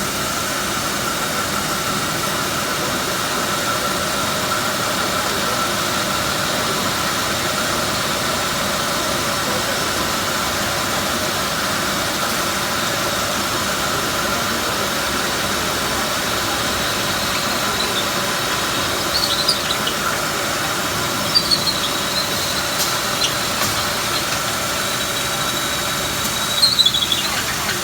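Fiberglass-pipe drilling machine running steadily with a constant whine. About two-thirds of the way through, a thin high squeal starts to come and go, with a few sharp squeaks near the end.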